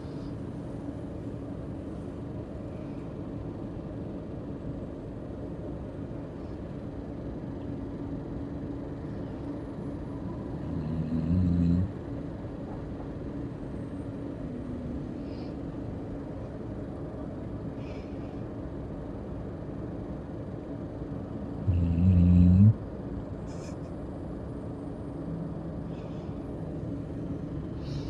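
A sleeping pet snoring: two loud, low snores about a second long each, roughly ten seconds apart, with a fainter one later, over a steady low hum.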